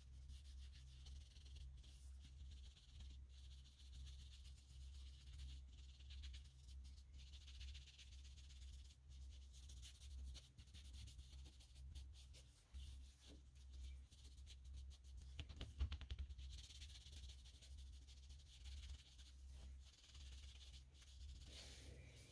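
Faint scratchy rubbing of a cloth pad wiping dye into a leather panel on paper, over a low steady hum, with a few light knocks about two-thirds through.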